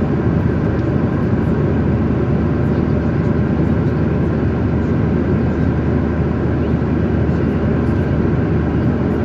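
Airliner cabin noise in flight: a steady, deep rushing of jet engines and airflow over the fuselage.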